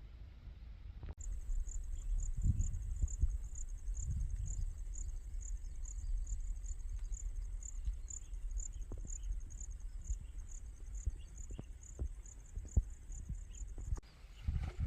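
Insect chirping: a high-pitched chirp repeating steadily a few times a second, starting abruptly about a second in and cutting off near the end, over a low rumble with a few soft knocks.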